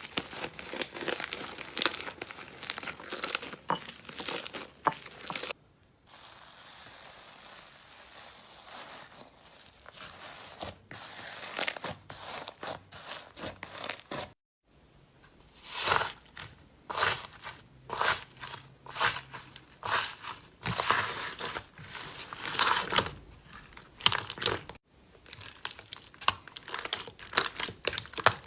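Slime being pressed, poked and stretched by hand, giving dense runs of crackling, crinkly clicks. It comes in several separate takes that cut off sharply; the second take is quieter and softer, with fewer clicks.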